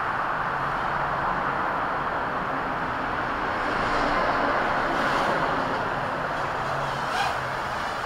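Parrot Mambo quadcopter minidrone's four propellers buzzing steadily as it hovers, swelling a little about halfway through, with a short click near the end.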